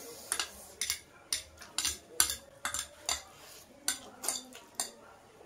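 Forks clinking and scraping against ceramic plates as noodles are twirled and eaten: about a dozen short, sharp clicks at an uneven pace, the loudest a little past two seconds in.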